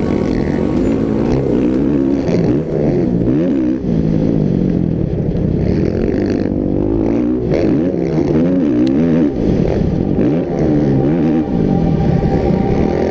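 Motocross bike engine revving up and down over and over as the rider works the throttle on the track.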